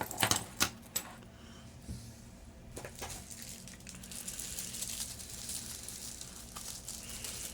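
Wristwatches being handled and set down: a few sharp metallic clicks and clinks in the first second, then faint rustling and the odd click as the lot is sorted through.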